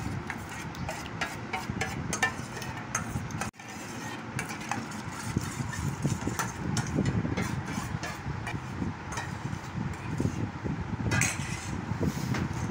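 Metal spoon stirring and scraping in a stainless steel bowl, with scattered light clinks, over a steady background noise. The sound cuts out for a moment about three and a half seconds in.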